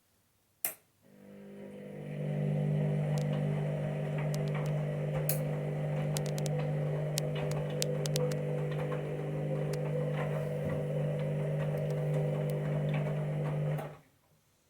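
Washing machine starting its wash cycle: a click, then the drum motor spins up with a steady hum and runs for about thirteen seconds, with light ticking over it, before cutting off abruptly. The drum turning on startup shows the machine is still working.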